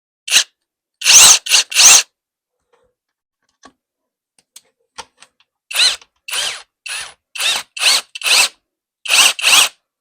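Cordless screwdriver driving a small chainsaw attachment in short trigger bursts, the motor and chain whining up and dying away each time: four bursts at the start, a few faint ticks, then about eight quick bursts in the second half.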